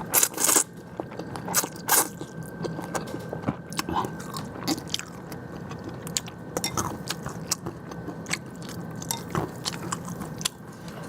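A person eating close to the microphone: biting and chewing food with many small wet clicks and smacks. A few louder bites or smacks come in the first second.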